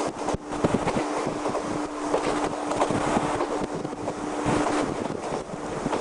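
JR East 185 series electric train running, heard on board: a steady rushing rumble with irregular clicks and rattles, and a steady hum that cuts off about five seconds in.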